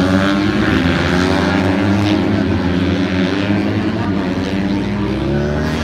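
Several small racing motorcycle engines running at once as a pack goes round the circuit, their pitches rising and falling and overlapping as the riders rev through the corners.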